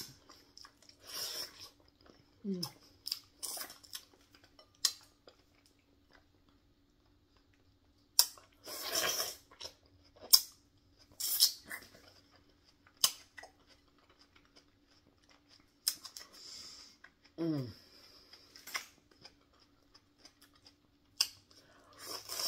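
Close-up eating sounds of a person chewing soft food in sauce, with wet mouth clicks and smacks coming at irregular moments. Twice, a short falling 'mm' hum of the voice.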